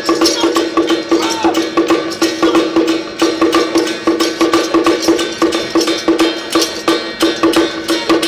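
Traditional Taiwanese temple gong-and-drum percussion accompanying a Song Jiang Zhen martial troupe: drum, gongs and cymbals beating a fast, steady rhythm, with a ringing gong tone on every beat.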